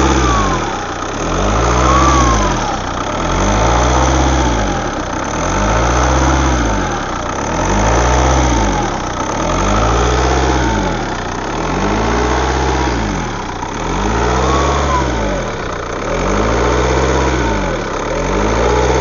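Turbocharged Opel Vectra C engine revved up and let fall back over and over, about every two seconds, with a thin whistle rising and falling with the revs; the owner takes the whistle for the turbo and asks what is causing it.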